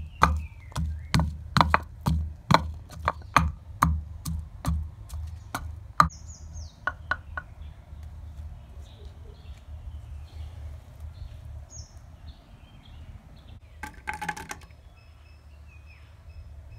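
Wooden pestle pounding garlic cloves in a wooden mortar, about two to three thuds a second, stopping about seven seconds in. Faint bird chirps follow, with a short clatter near the end.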